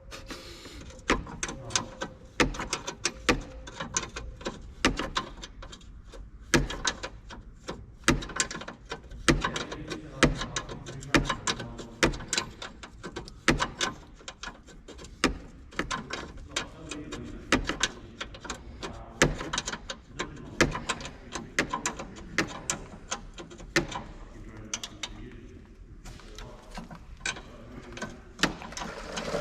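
Irregular sharp clicks, taps and knocks of hand tools and metal brake parts being handled during work on a car's front brakes, a few a second, easing off briefly near the end.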